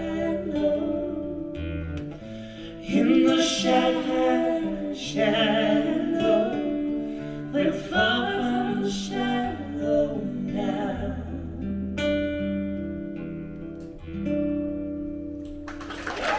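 A singer performing live to guitar accompaniment; the song winds down and audience applause breaks out right at the end.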